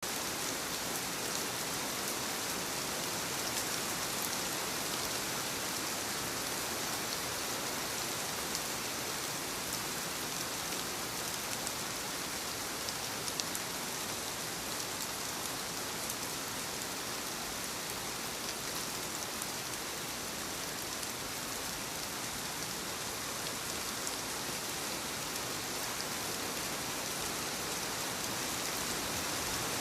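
Steady rain on a wooden cabin's roof: an even hiss with scattered drop ticks.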